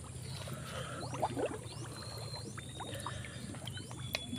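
Shallow muddy water sloshing and dripping as a snakehead caught on a set line is lifted and handled in it. Many small quick rising plinks of drops run through it.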